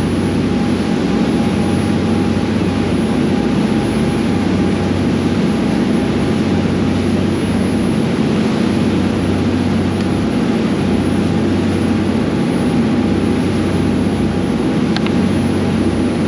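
Charter boat's engines running steadily underway, a constant loud drone with a low hum, and a single brief click near the end.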